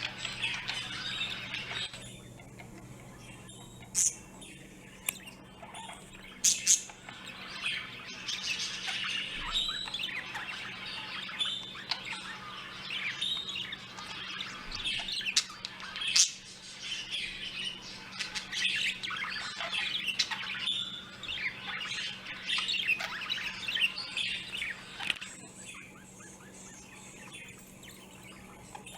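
A flock of small birds chirping and chattering, many short calls overlapping, thinning out for a couple of seconds near the start and again near the end. A few sharp clicks stand out, the loudest about sixteen seconds in.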